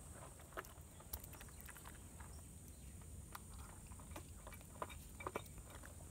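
Young bushbuck calf lapping milk from a shallow plate: faint, irregular slurps and wet clicks, a few a second.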